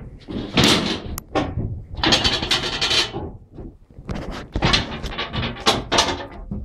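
Irregular scraping, rustling and knocking of people moving about and handling things inside the locomotive's body, in several bursts of about a second each.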